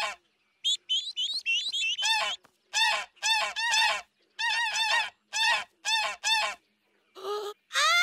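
Cartoon geese voices giving a quick run of short, wobbling honk-and-twitter calls, about ten in a row, stopping about six and a half seconds in. A single short call follows, and a long held call starts right at the end.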